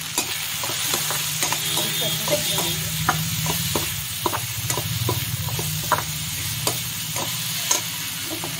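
A perforated metal spatula scraping and knocking against a metal kadhai as onion, tomato and peas are stir-fried with spices, in irregular clicks about one or two a second. A light sizzle of frying and a steady low hum run underneath.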